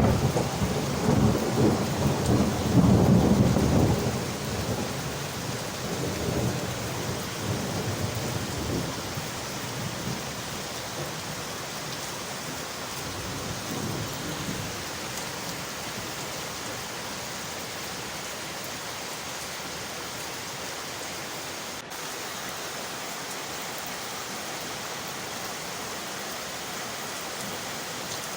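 Steady rain on windowpanes, with a rumble of thunder that is loudest for the first four seconds and dies away, leaving an even hiss of rain.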